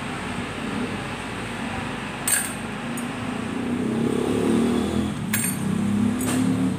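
Metal clutch plates from a motorcycle clutch pack clinking together as they are handled, four short clinks, over the drone of a vehicle engine running in the background that grows louder about four seconds in.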